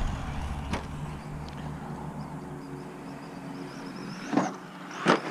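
Team Associated RC10T3 truck's brushless electric motor whining faintly as it drives, over a low wind rumble, with a few sharp clicks: one about a second in and two near the end.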